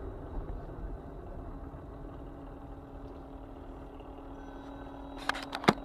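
Steady engine and road noise of a car in slow traffic, picked up by a dashcam inside the cabin, with a steady low hum. Near the end come a few sharp clicks.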